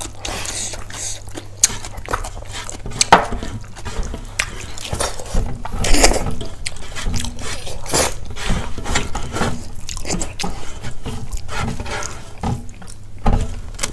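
Close mouth sounds of eating: wet slurping of buffalo-trotter soup and chewing of dhido, with many short smacks and clicks and a louder slurp about six seconds in.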